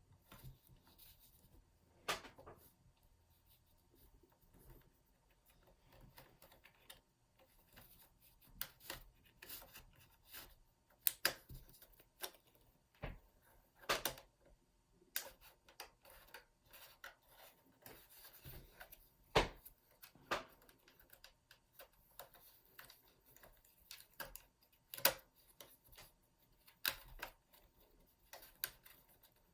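Irregular plastic clicks, taps and scrapes of a pry tool working at the clips of an MSI GP66 Leopard laptop's plastic case, with a few sharper clicks scattered through.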